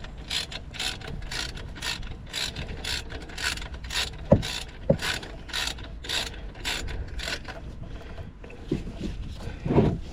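Socket-wrench ratchet worked back and forth to tighten a brake caliper bolt, each stroke a short burst of clicking, about two strokes a second, slowing and thinning out after about seven seconds. Two sharp metallic knocks come near the middle, and a duller thump comes near the end.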